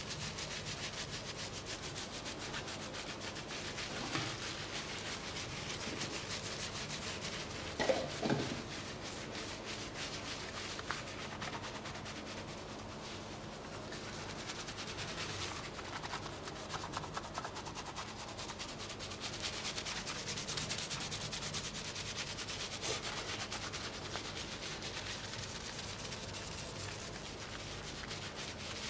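Hands scrubbing a shampoo-lathered scalp: steady wet rubbing of foam and hair. There is one brief louder sound about eight seconds in.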